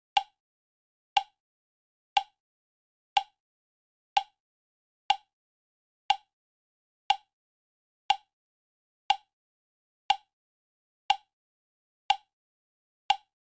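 Countdown timer sound effect: a short, sharp clock tick once every second, with silence between the ticks.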